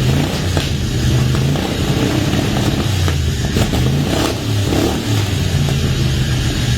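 1971 GMC C10 pickup engine running on its first start in two years, fed by a newly fitted fuel pump and regulator that may not yet be dialed in. It has a loud, low, uneven note whose pitch shifts up and down now and then.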